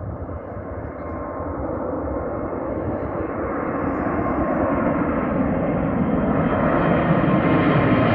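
Boeing 787 jet airliner climbing out just after takeoff, its engine roar growing steadily louder as it comes nearer, with a faint steady whine under the roar.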